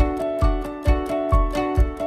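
Background music: a plucked-string melody over a steady thumping beat, a little over two beats a second.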